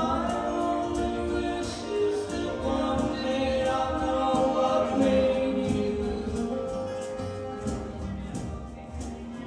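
Live acoustic band: several voices singing together in long, held harmony over strummed acoustic guitars keeping a steady beat.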